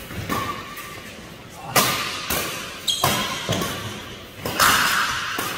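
Badminton rackets striking a shuttlecock in a doubles rally: several sharp hits, about half a second to a second and a half apart, each ringing briefly in a large hall.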